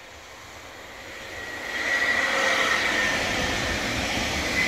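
Electric commuter train (Stadler FLIRT unit) approaching and passing close by. Its rushing rail noise grows louder over the first two seconds and then holds, with a steady high whine running through it.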